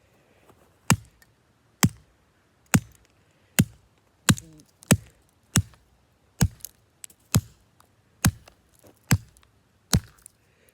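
Repeated blows smashing a flip phone, about a dozen sharp cracking impacts at roughly one a second.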